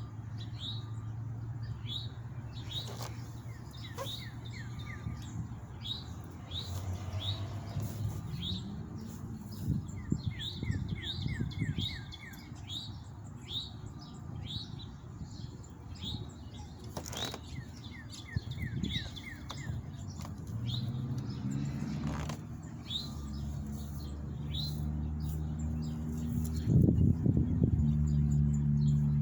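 Small songbirds chirping over and over in short falling notes, with a couple of quick trills. A low hum grows louder in the last several seconds, along with a few sharp clicks.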